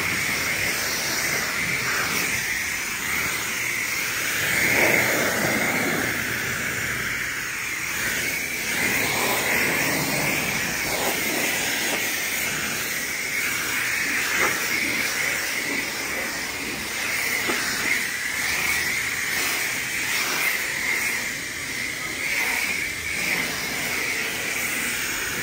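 High-pressure water spraying from a car-wash wand onto a car, a steady hiss that swells and dips slightly as the spray moves.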